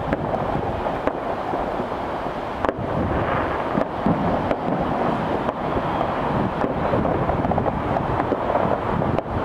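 Distant fireworks going off across the city: scattered short bangs and pops about once a second over a steady rush of wind on the microphone.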